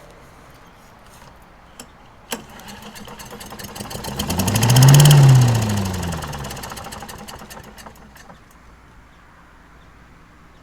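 Briggs & Stratton Quantum 5 hp engine on a leaf vacuum, pull-started with its air filter off: it catches a couple of seconds in, surges up in speed and winds back down, dying out after a few seconds. The owner puts the failure to keep running, without choke, down to a carburetor problem.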